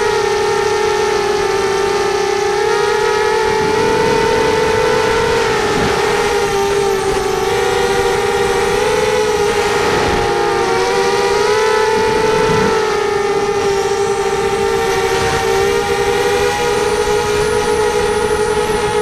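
FPV racing quadcopter's electric motors and propellers whining steadily, the pitch wavering a little as the throttle shifts.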